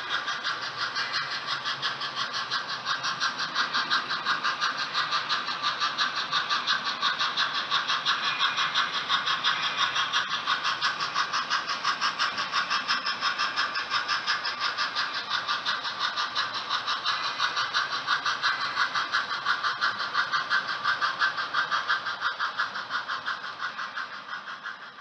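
HO-scale model train running along the track, a steady rapid rhythmic clatter at about four or five beats a second, fading out at the end.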